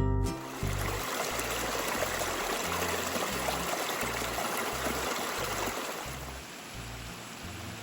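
Creek water rushing over small cascades and short falls, a steady hiss that eases a little near the end, with faint low music notes beneath it.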